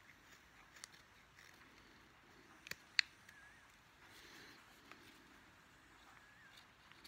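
A carving knife slicing into a wooden spoon bowl: a few short, crisp snicks of the blade cutting through wood, the two loudest close together about three seconds in.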